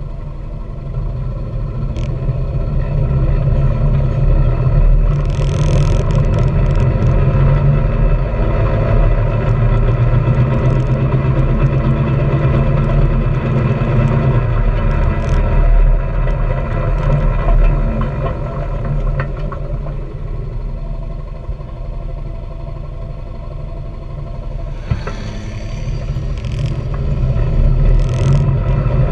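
Honda Pioneer 700-4 side-by-side's single-cylinder engine running steadily as it drives a gravel trail, with tyres rolling over loose stones. It grows louder over the first few seconds, and there are short rushes of noise about five seconds in and again near the end.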